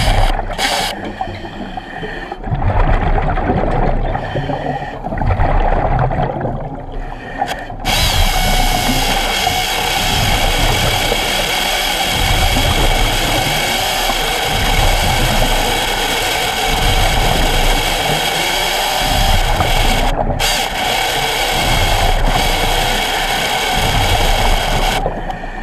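Hydraulic chainsaw, fed about 4 gallons a minute, running and cutting into wood underwater. The sound turns steady and even about eight seconds in, with a few brief dips near the end.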